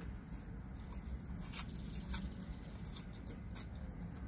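Close-up chewing of a bacon cheeseburger, with scattered wet mouth clicks and smacks over a low steady hum.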